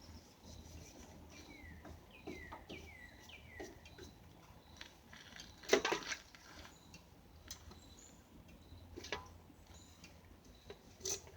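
A bird calling: a run of about five short notes, each falling in pitch, in the first few seconds. A few sharp knocks or clicks sound through the rest, the loudest about halfway through.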